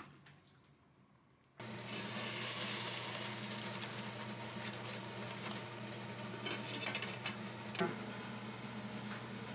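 A kitchen appliance motor switches on about a second and a half in and runs with a steady hum over a hiss, with faint crackles.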